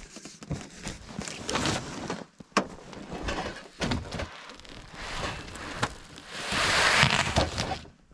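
Boots crunching in packed snow and a large cardboard box being carried and handled, with a few sharp knocks; a louder scraping rush near the end as the box is set down and shoved onto a sled.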